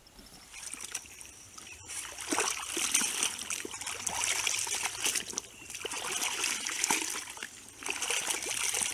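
Muddy swamp water splashing and sloshing in irregular bursts as a barkcloth is worked by hand in the pool during its mud dyeing, starting about two seconds in.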